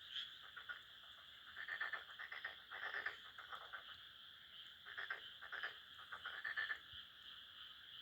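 Frogs in a rice paddy calling: short bursts of rapid pulsed croaks, each under a second, come in several clusters over a steady high-pitched background chorus.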